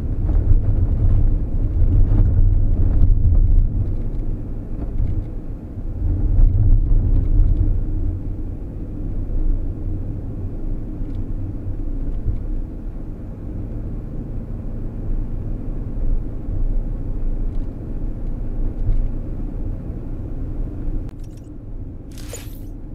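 A car's road noise heard from inside the cabin while driving at about 35 mph on a snow- and ice-covered road: a steady low rumble of tyres and engine, louder in the first few seconds and again around six seconds in. A couple of brief sharp sounds come near the end.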